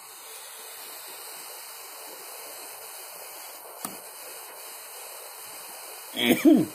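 Butane torch flame hissing steadily while heating the dab rig's nail. There is one sharp click about four seconds in and a brief hum of voice with falling pitch near the end.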